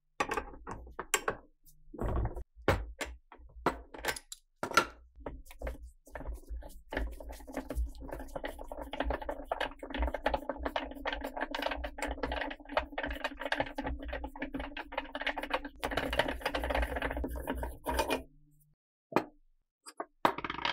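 Sharp metal knocks and clicks as a pipe wrench grips and turns a rusty steel RPG-7 launcher tube. Then comes a long, continuous gritty grating of rusted threads as a section of the tube is unscrewed. It stops about two seconds before the end, and a few light clicks follow as the loose metal sleeve is set down on the wooden bench.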